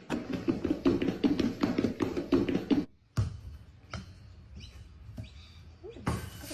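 Rapid tapping and knocking for about three seconds, which stops abruptly. A quieter stretch with faint chirps follows, then a short burst of hiss near the end.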